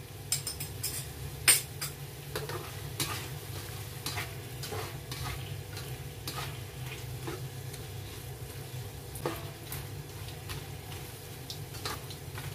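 Squid and bell pepper sizzling in a wok while a spatula stirs and turns them, scraping and clacking irregularly against the pan, over a steady low hum.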